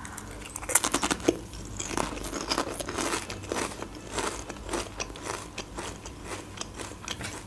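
Potato chip being bitten and chewed close to the microphone: a rapid run of crisp crunches, densest in the first few seconds, settling into softer chewing.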